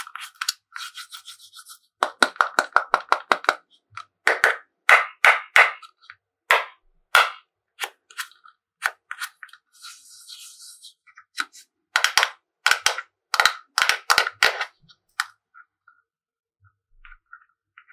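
Slime being squeezed and worked by hand, giving quick runs of sharp, sticky pops and clicks, with short pauses between the runs and a brief hiss near the middle.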